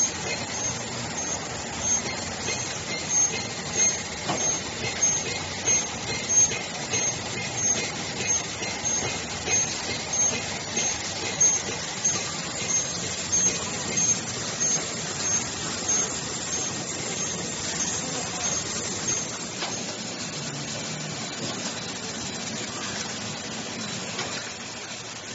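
Automatic glass-bottle washing, filling and aluminium-capping monoblock running: steady machine noise with louder beats about once a second and a faint high whine. The beats and the whine stop about twenty seconds in, leaving a steadier running noise.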